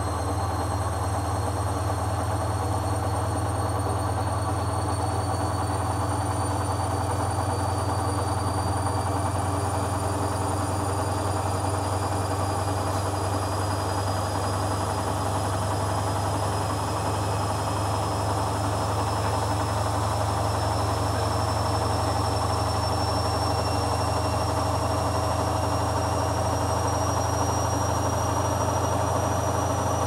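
Hoover Dynamic front-loading washing machine spinning: a steady low hum under a thin high motor whine that rises slowly and evenly as the drum gathers speed.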